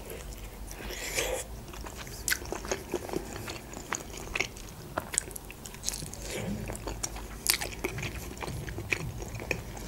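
A person biting into and chewing a boiled khinkali dumpling: short mouth clicks and smacks scattered irregularly, picked up close to the microphone.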